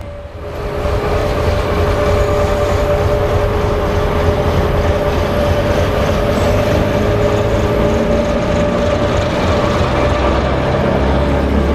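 BDZ Class 07 'Ludmilla' diesel locomotive, with its Kolomna V16 diesel engine, running close by as it moves slowly along the platform. The sound is a loud, steady low engine rumble with a steady whine over it, swelling in the first second as the locomotive draws near.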